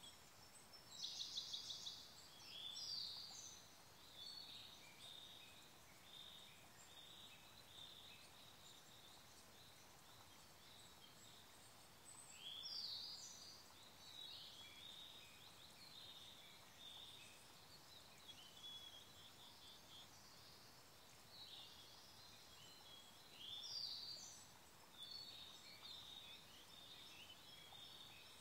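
Several songbirds singing over a faint, steady stream murmur. There is a quick rattling trill about a second in, and louder song phrases come about 3, 13 and 24 seconds in.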